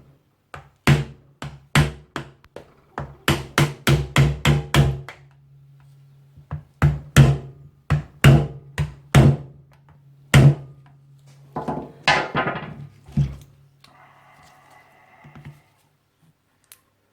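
Irregular sharp knocks and taps of a tool against the plastic top of a sealed lead-acid car battery, some in quick runs, as its cover is worked at to pry it off; the cover stays bonded on. A low steady hum runs underneath, and a short scrape comes near the end.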